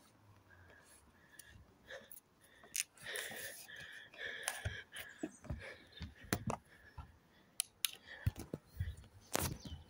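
Scattered light clicks and knocks of hands handling a homemade wooden level-crossing model and its crossing light, with a louder knock near the end.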